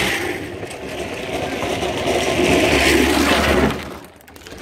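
A pedal drift trike's wheels rumbling and scraping across asphalt as it slides past, a steady noisy grind that drops away sharply near the end.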